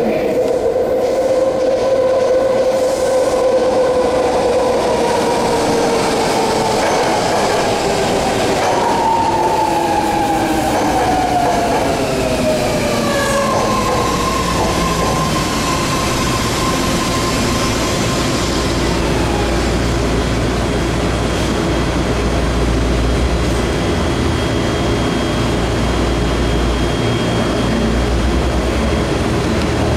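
BART train pulling into the station and slowing to a stop. Its high whine falls steadily in pitch as it brakes over the first fourteen seconds or so. Then a steady tone and a low rumble follow as it stands at the platform.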